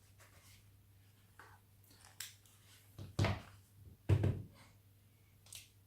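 Handling noise while working on a laptop with small tools: a few light taps and clicks, then two louder dull knocks about three and four seconds in.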